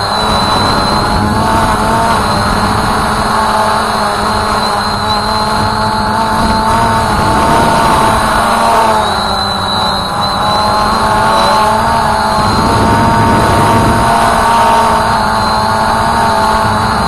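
Voyager 3 drone's electric motors and propellers whining steadily in flight, heard close up through the drone's own camera microphone. Several whining tones waver slightly in pitch as the throttle shifts, over a low rumble.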